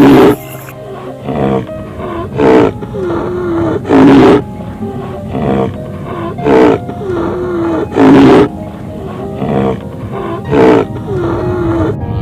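A large animal roaring over and over, a loud roar about every one and a half to two seconds with softer, shorter calls in between.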